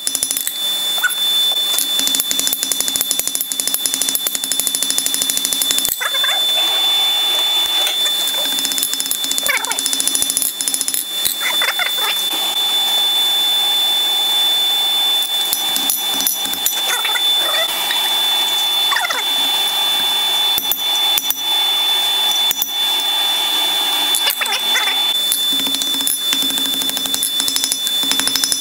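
Hand hammer striking hot steel on an anvil: rapid blows for the first six seconds or so, then slower, scattered blows and knocks as the bar is shifted in tongs. A steady high whine sits underneath.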